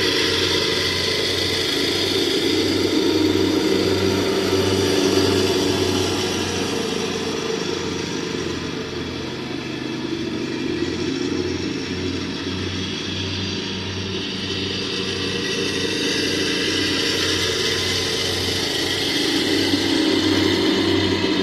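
Lawn mower engine running steadily under load while mowing, its level dipping a little through the middle and rising again near the end.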